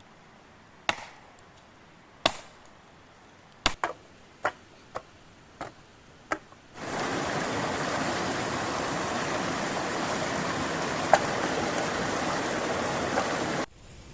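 About eight sharp chopping knocks at uneven intervals. About seven seconds in, a loud, steady hiss takes over and cuts off abruptly near the end.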